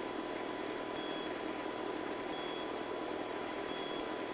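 Steady, fairly quiet hiss of a Robinson R22 helicopter in flight, as heard on its intercom audio, with a faint steady hum and a short faint high beep repeating about every second and a third.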